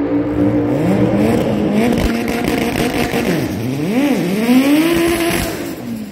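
Drag race car engines revving hard, their pitch climbing, dipping and climbing again several times, then falling away near the end.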